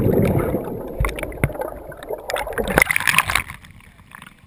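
Pond water churning and bubbling, heard underwater just after a plunge, fading over the first couple of seconds with scattered knocks. A short burst of splashing comes about three seconds in as the swimmer comes up at the surface.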